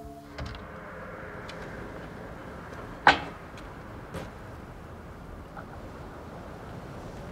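Steady outdoor night hum with a door shutting in one sharp, loud bang about three seconds in, and a couple of fainter clicks around it.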